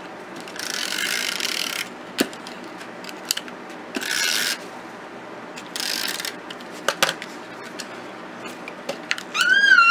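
Hand-held tape runner drawn along paper in three short rasping strokes, laying double-sided adhesive, with a few small clicks between. Near the end a cat meows once, rising then falling.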